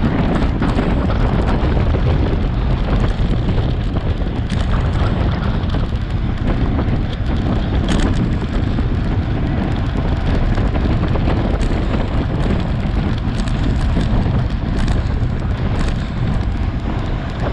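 Wind buffeting a bike-mounted camera microphone at racing speed of about 24 mph, a loud, steady rumble with a few sharp clicks from the bike and road.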